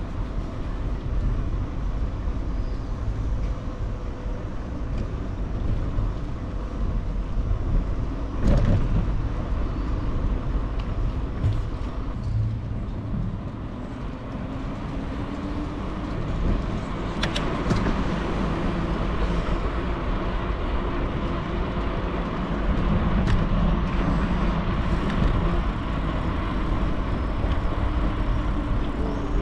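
Riding a bicycle through town streets: steady wind rumble on the microphone and tyre and road noise, with traffic in the background. There are a few sharp knocks, one about eight seconds in and a couple more near the middle.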